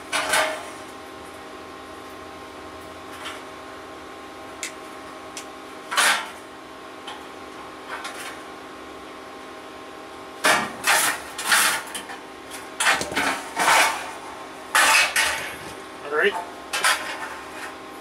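Irregular metal clinks and scrapes as the small tabs on the terminals of a replacement dryer heating element are bent in, over a steady hum.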